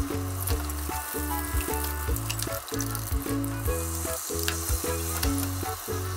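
Beaten egg sizzling in a hot oiled square tamagoyaki pan, with light clicks of chopsticks against the pan as the omelette is rolled. Fresh egg poured in about four seconds in makes the sizzle louder. Background music with a steady bass rhythm plays underneath.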